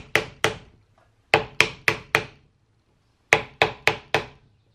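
Hammer tapping a wooden drift against a rifle's rear sight, driving the sight sideways into its barrel dovetail. Sharp taps in quick runs of two, then four, then five, about four a second, with short pauses between.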